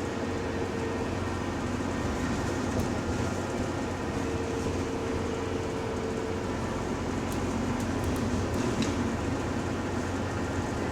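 Bus running in service, heard from inside: a steady engine and road rumble, with a thin whine that comes in briefly near the start and again from about four to seven seconds in, which the uploader takes for a subtle, weird differential noise.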